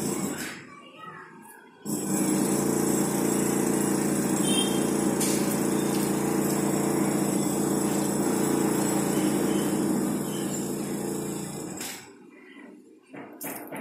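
A steady mechanical motor hum with an even, unchanging pitch. It fades out about half a second in, cuts back in abruptly about two seconds in, and drops out again near the end.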